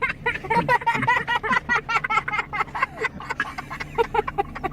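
An animal's rapid, high-pitched chattering call: a quick run of short chirps, many a second, without a break.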